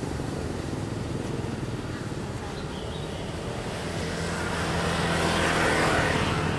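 Small engine running steadily at an even pitch. A rushing noise builds from about four seconds in and is loudest near the end.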